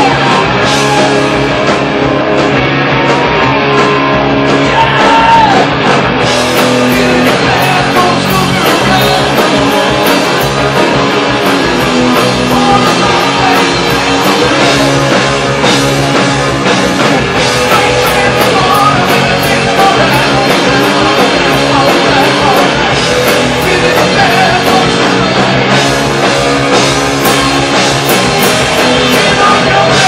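Live rock band playing loud: distorted electric guitars, bass guitar and drums, with a lead guitar bending notes in the first few seconds.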